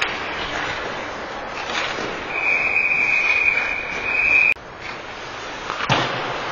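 Ice hockey referee's whistle blowing one long, shrill blast to stop play after a scramble at the net, cut off suddenly, over steady rink noise. About a second and a half later comes a single sharp crack of stick or puck.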